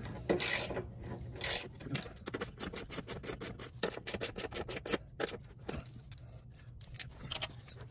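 Hand ratchet clicking as skid-plate bolts are rechecked and snugged up: quick runs of sharp clicks, thinning out after about five seconds.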